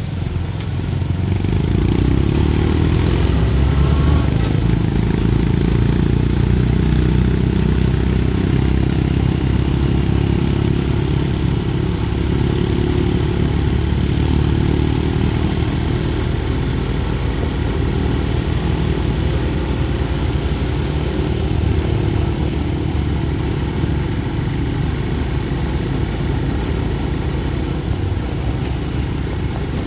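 Small motorcycle engine running steadily on the move, as on a motorcycle tricycle, getting louder about two seconds in.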